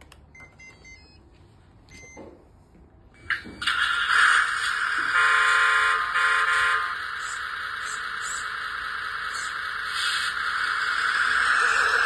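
A few short electronic beeps as the RC truck's electronics power up, then, from about three and a half seconds in, a steady electronic engine-running sound from the truck's small speaker, with a horn sounding for just under two seconds partway through.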